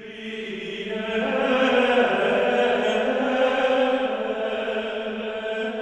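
Background choral music: voices singing long held notes in a slow chant, fading in over the first second.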